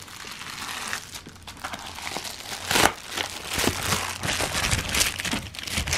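Plastic bubble mailer being handled and opened by hand: a run of plastic rustles and sharp crackles, the loudest about three seconds in.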